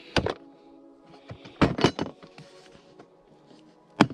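Hard plastic case lid being shut and its latches snapped closed: a few sharp knocks and clicks, a cluster about a second and a half in and another strike near the end, over background music.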